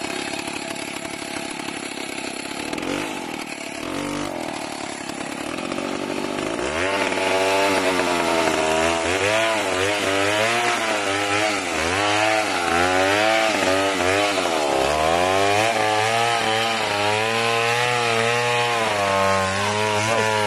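Stihl gasoline chainsaw ticking over at low speed. About a third of the way in it is opened up to full throttle and cuts into wood, its engine pitch dipping and recovering again and again as the chain bites under load. Near the end it falls back to a lower speed.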